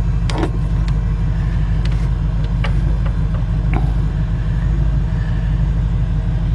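A vehicle engine idling with a steady low rumble, with a few light clicks and taps over it.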